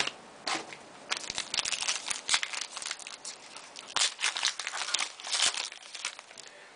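Plastic wrapper of a 2010 Panini Certified football card pack crinkling and tearing as it is opened by hand, in a run of quick rustles.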